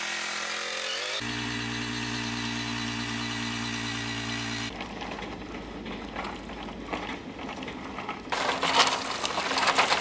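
Small gas engine of a field line-striping paint machine running at a steady pitch. In the second half it is rougher, with clattering and hiss over it, getting louder near the end.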